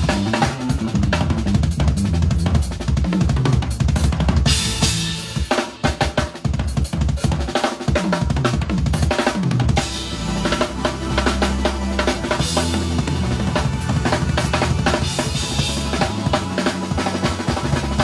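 Drum kit being played: bass drum and snare in a busy groove with quick fills, and cymbals ringing out about four and a half seconds in and again around twelve seconds.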